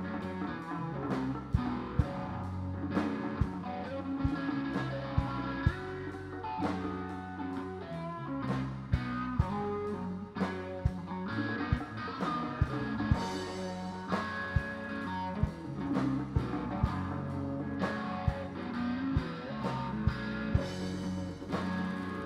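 Live band jamming: electric guitar and electric bass over a drum kit and a hand-played djembe-style drum, with a steady beat of sharp drum hits.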